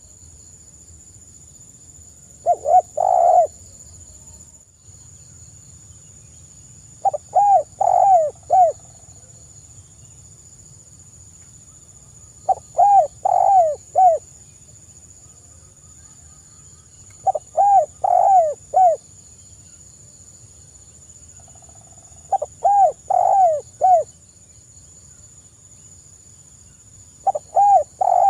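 Spotted dove (tekukur) cooing: six short phrases of three to five coos each, one about every five seconds.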